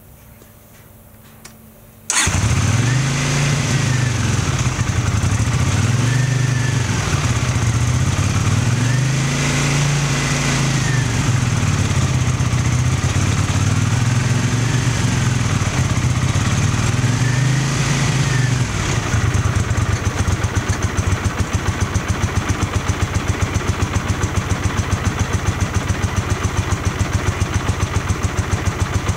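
1982 Honda GL500i Silverwing's liquid-cooled V-twin engine starting about two seconds in, then blipped up and down about five times on the throttle before settling into a steady idle near the end.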